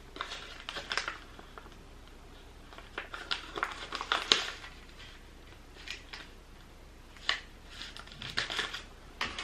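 Paper rustling and crinkling in scattered short bursts as a small kraft-paper envelope is handled between the fingers.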